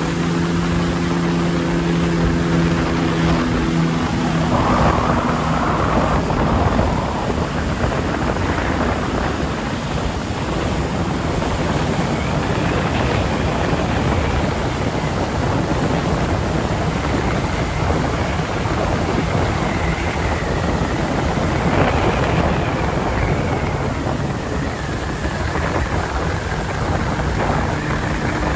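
Boat running fast on the water: a steady loud rush of wind and water with a deep rumble, and a low engine hum that fades out after the first few seconds.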